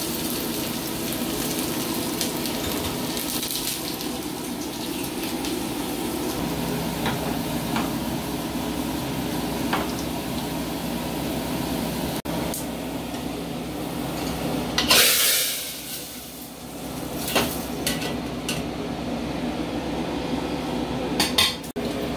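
Garlic and cumin seeds sizzling steadily in hot oil in a small frying pan, the tempering (chhownk) for dhal. There is a brief louder burst of hiss about fifteen seconds in, and a few clinks of a ladle on a metal pot near the end.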